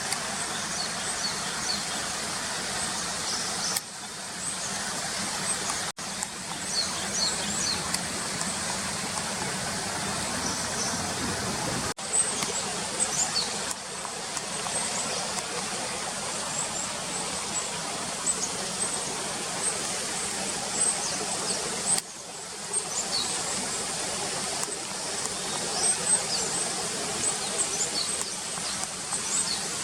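A mixed flock of Japanese tits and varied tits giving many short, high, thin calls, over a steady noise of passing road vehicles.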